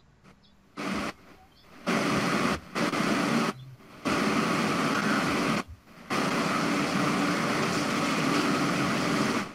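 Loud, even static hiss that switches on and off abruptly, in four stretches after a near-silent start; the last stretch lasts about three seconds.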